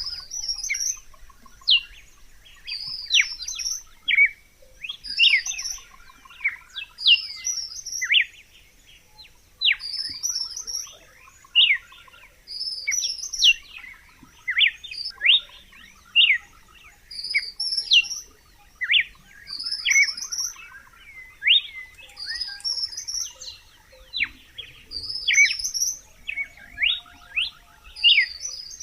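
Red-cowled cardinal singing, repeating a short phrase of quick downward-sliding notes about every two seconds.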